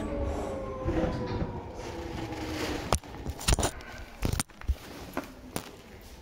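Seibu 2000 series electric train slowing to a stop: several whining tones from the motors and gears slide down in pitch over a low rumble and die away about three seconds in. After that comes a string of uneven sharp clicks and knocks.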